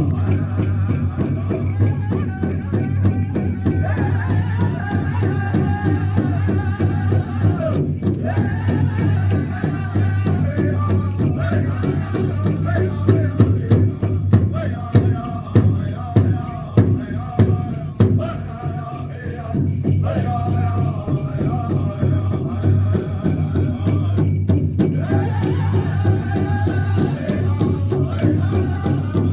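Powwow-style group singing over a steady, even drumbeat, with a run of harder, louder beats around the middle.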